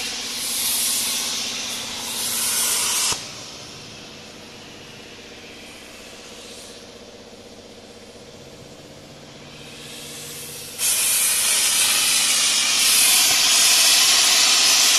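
CNC plasma cutting torch cutting rectangular steel tube: a loud, steady hiss of the arc that cuts off suddenly about three seconds in. A much quieter steady hum with a few low tones follows, and then the arc strikes again with a sudden loud hiss about eleven seconds in and keeps cutting.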